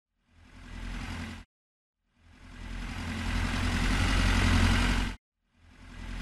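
Motor noise of a toy wheel loader working its bucket and driving, in three bursts that each swell up and cut off abruptly, the middle one longest and loudest.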